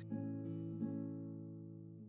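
Background music: guitar notes ringing and slowly fading.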